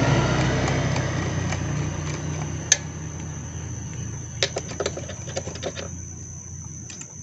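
Small clicks and knocks of a hand working the terminal of a motorcycle's small sealed battery: one sharp click about two and a half seconds in, then a quick run of lighter clicks between about four and a half and six seconds. Under them a low engine-like hum fades away.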